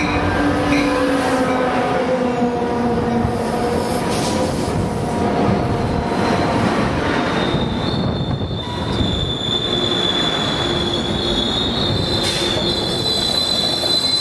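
Metrolink F59PH diesel locomotive 867 and its coaches rolling into the station. In the first few seconds there is a low engine note that drops in pitch as it passes. From about halfway in, a high steady wheel and brake squeal starts and carries on as the train slows.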